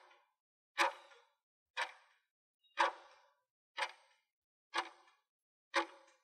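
Countdown-timer sound effect ticking once a second: six sharp, evenly spaced ticks.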